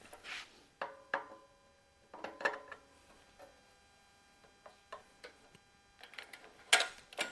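Scattered metallic clinks and knocks, a few with a short ring, as a shop hoist is let back down with the tractor's radiator on the strap. The loudest knock comes near the end.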